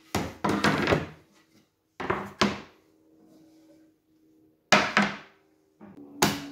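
Oak boards being handled and set down on a workbench: a series of irregular wooden knocks and clatters, about six in all, with a short rough scrape near the start.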